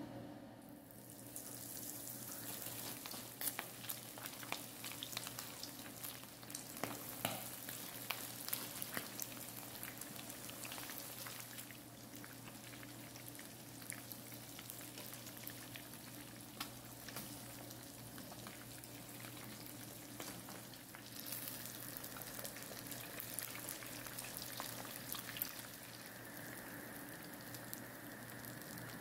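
Fish pieces frying in hot oil: a steady sizzle that starts about a second in, with many scattered pops and crackles.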